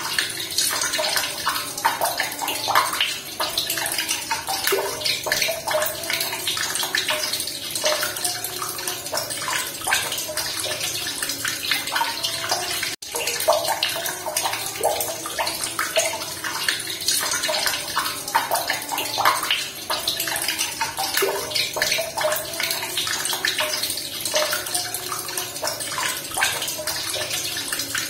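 Running water splashing and bubbling steadily, close to the microphone.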